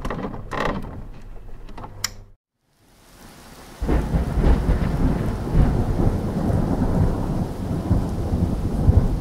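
A few short, sharp intro sound effects in the first two seconds, then a brief silence. From about four seconds in, rumbling thunder with steady rain.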